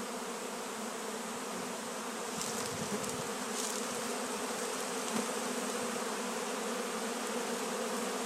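Many honeybees buzzing in a steady, dense hum as they crowd over freshly extracted wet honey supers: a robbing frenzy on the leftover honey.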